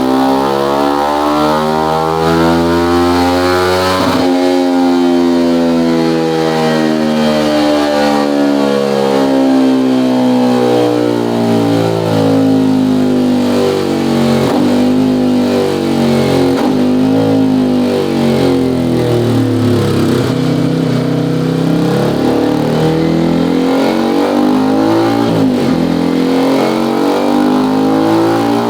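Small-capacity sport motorcycle engine revving through a carbon-steel EvoX STD aftermarket exhaust with its dB-killer baffle fitted. The engine pitch climbs, drops sharply about four seconds in, sinks slowly, then rises again near the end.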